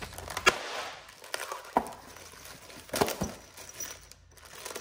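Packaging and bagged hardware being rummaged through by hand: rustling with several sharp clicks and knocks.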